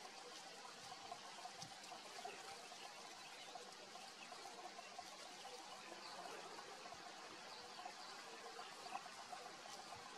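Faint outdoor background: a low, steady hiss with a faint, busy murmur and a few scattered faint chirps, and no distinct event.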